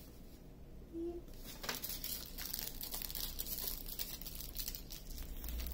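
Small plastic bags of diamond painting drills crinkling and rustling as they are handled, a run of light crackles that starts about a second in.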